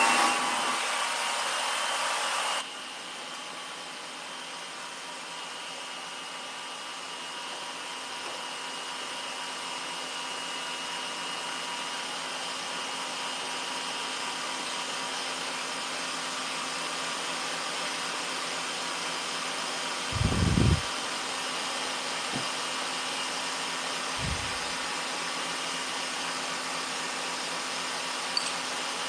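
Electric stand mixer running at speed, its wire whisk beating egg whites and caster sugar for meringue. It is louder for the first two or three seconds, then settles into a steady whirr. A low thud comes about twenty seconds in, and a few small knocks follow.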